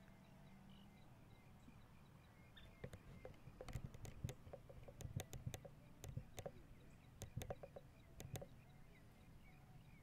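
A run of sharp clicks and knocks, coming in clusters for about five seconds in the middle, over a near-silent outdoor background with faint, scattered high chirps.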